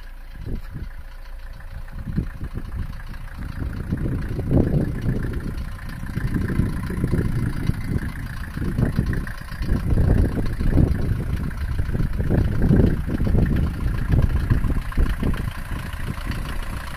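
1986 Mercedes-Benz 190's OM601 four-cylinder diesel engine idling, a low steady rumble that grows louder and softer at times.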